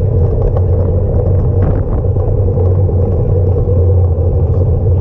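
Steady low rumble of a bicycle being ridden over paving slabs, picked up through a handlebar-mounted camera.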